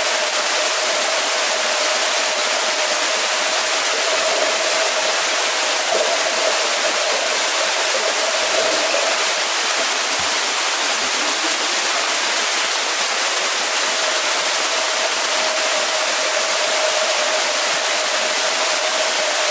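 Steady rushing water noise of a swimming pool in use, with a constant hum running underneath.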